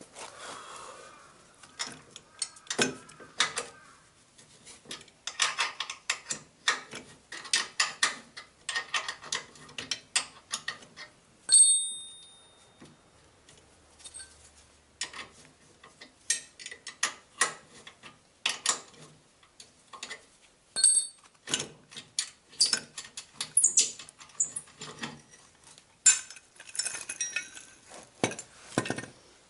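Steel spanner and bolts clinking and knocking in irregular bursts as a stubborn caster-wheel mount is unbolted by hand. Near the middle a metal part strikes with a short, clear ring, and a fainter ring follows later.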